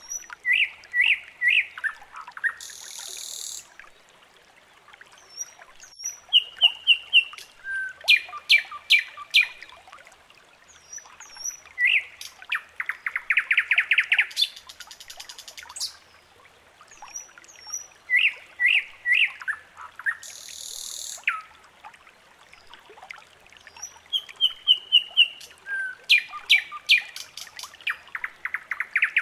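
Birds chirping and trilling, several different calls and quick rattling trills. It is a looped recording that repeats about every 18 seconds.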